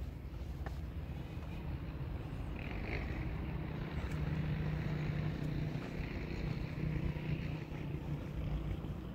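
A distant engine hums steadily over a low rumble, loudest from about four seconds in until nearly eight seconds.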